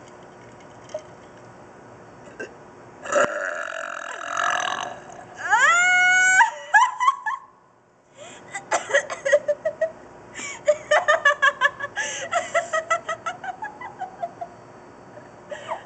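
A person burping loudly: a long rough burp about three seconds in, then a longer pitched burp that rises in pitch. After a brief hush this gives way to bursts of giggling laughter.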